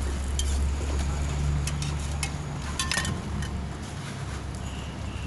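A metal spatula clinks against a roti griddle several times over the low rumble of a passing vehicle's engine, which fades after about three seconds.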